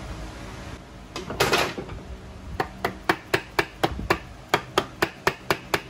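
Rapid light hammer taps, about four a second, on a Kawasaki Z1-R engine's starter motor as it is worked out of the aluminium crankcase. A brief scrape comes first, about a second and a half in.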